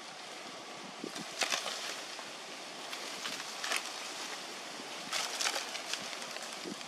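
Leaves and thin branches rustling in several short bursts as a young macaque climbs through them, over a steady outdoor hiss.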